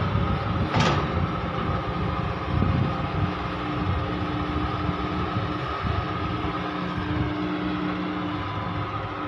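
Caterpillar 320D hydraulic excavator's diesel engine running steadily under load as it dumps a bucket of soil into a truck, swings and digs. A single clank comes about a second in, and a steady higher tone joins the drone from about three and a half seconds to eight and a half.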